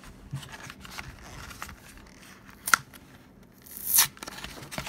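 Pokémon card packaging being opened: faint small clicks and rustling, a sharp click near the middle, and a short, louder tearing noise about four seconds in.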